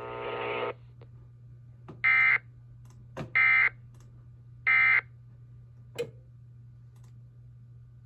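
EAS encoder/decoder sending the End of Message code: three short, loud bursts of SAME digital data tones, each about a third of a second long and about a second apart, marking the end of the alert. Before them a steady buzzing tone cuts off under a second in, and a low hum runs underneath with a faint click about six seconds in.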